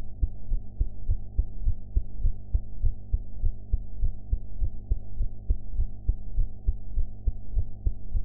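A woman's heart beating in a steady, regular rhythm of short low lub-dub thumps, over a steady low hum.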